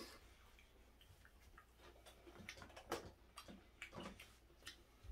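Faint, irregular clicks and smacks of a person chewing food with the mouth close to the microphone.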